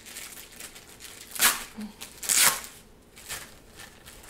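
Clear plastic wrap being torn and peeled off a rolled diamond-painting canvas, with two loud rips about a second apart as its strongly glued seam gives way.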